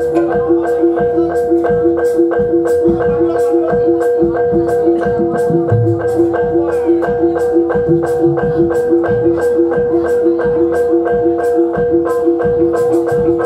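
Live gamelan music for a jathilan dance. Metal mallet instruments repeat a fast note about three times a second over steady ringing tones, with sharp clicks in time and irregular low drum beats.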